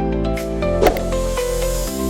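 Soft background music of calm, sustained chords.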